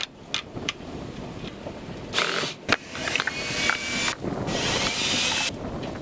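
Plastic screw cover strip being pried and peeled off a storm door's aluminum hinge rail: scattered clicks and scraping, a sharp snap in the middle, and a longer scraping hiss near the end.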